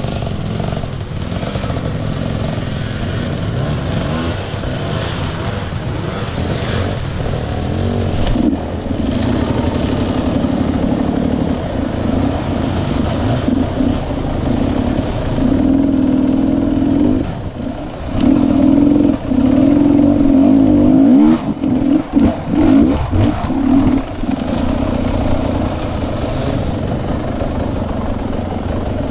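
Dirt bike engine being ridden off-road, the throttle opening and closing. The revs climb and hold from about halfway through, then come in short choppy throttle blips for a few seconds before settling back.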